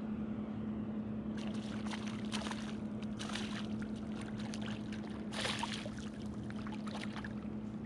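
Water splashing in several bursts as a hooked summer flounder (fluke) thrashes at the surface and is drawn in by hand, the strongest splash about two-thirds of the way through. A steady low hum runs underneath.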